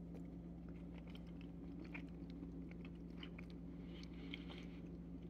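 A person chewing a mouthful of soft ripe avocado: faint, scattered wet mouth clicks and smacks over a steady low hum.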